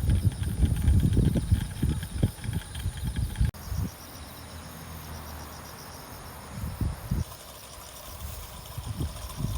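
Insects chirping in a steady, pulsing chorus, with heavy low thumps and rustling over them for the first few seconds. The thumps cut off abruptly; after that the insects go on more quietly, with a couple of soft bumps.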